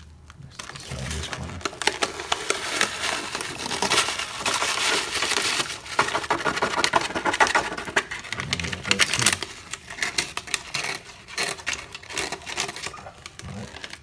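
HurriClean foaming toilet-tank cleaner powder being poured from its paper packet into the tank water. The packet crinkles while the powder fizzes and crackles as it foams, strongest in the middle and thinning out near the end.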